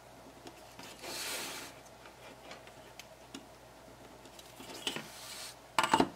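Quiet handling of cardboard and a steel ruler: a soft pen scratch marking the cardboard about a second in, small ticks and scrapes as the pieces are shifted, and a short sharp clatter near the end as the metal ruler is laid down.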